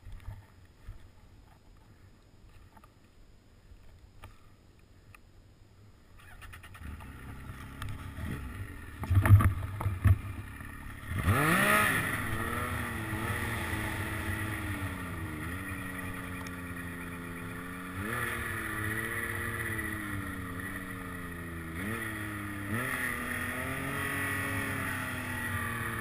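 A few seconds of quiet with faint knocks, then a low engine rumble and a couple of loud thumps. About eleven seconds in, a snowmobile engine revs up sharply and keeps running under throttle, its pitch rising and falling as the sled ploughs through deep powder.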